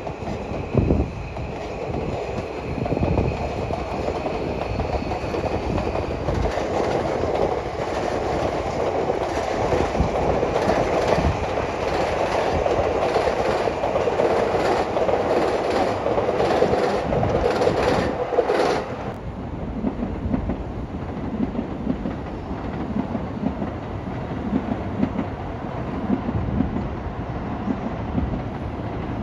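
A train running on the rails at Tokyo Station, with a steady faint whine early on and then rapid clicking of the wheels over the rail joints. The train noise drops off suddenly about two-thirds of the way through, leaving a quieter steady rumble.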